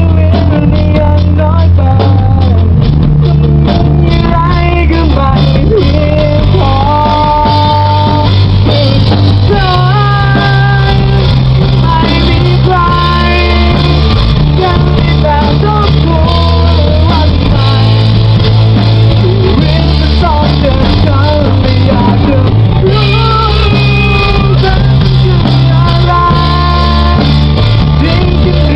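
A song playing loudly: a singing voice carries the melody over a band with a steady bass line.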